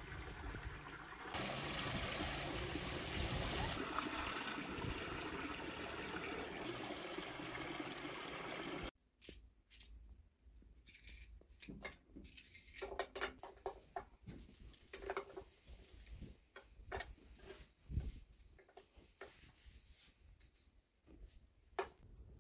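Water pouring from a pipe into a pool as onions are rinsed under the stream. About nine seconds in it cuts off, giving way to faint scattered clicks and scrapes of a knife peeling onions.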